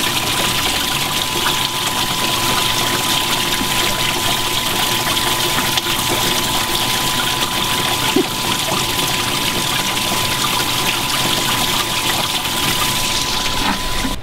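Water driven by a 3/4-horsepower pump streaming steadily into a 100-gallon stock-tank bait well, with a thin steady tone under the splashing that stops just before the end.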